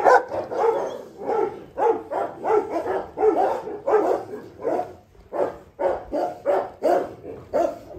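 A dog barking over and over in a steady series, about two to three short barks a second.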